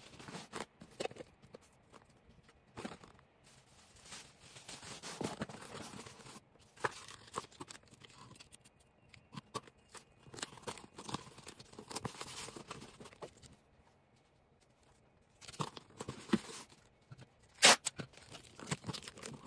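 Plastic packing material being handled, with irregular crinkling and tearing, scattered sharp clicks, and one loud click near the end.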